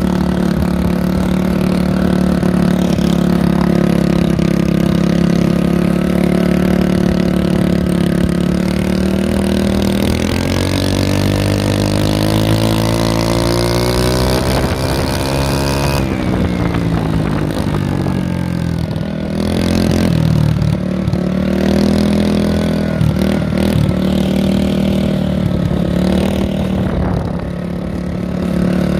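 Mini bike's small engine running loud under way, its pitch climbing steadily as it accelerates for about six seconds in the middle, then falling away abruptly and settling back to a steady run.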